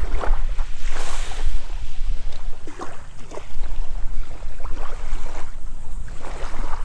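Wind rumbling steadily on the microphone, with small waves lapping at the water's edge in short splashes every second or so.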